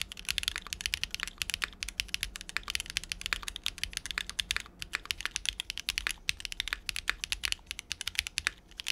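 Qwertykeys QK75 75% gasket-mount mechanical keyboard being typed on quickly, a dense run of sharp keystroke clacks several per second. It has no internal foam: first with the PCB's flex cuts open, later with the flex cuts taped over, the builder's fix for the slightly thin sound the flex cuts can give.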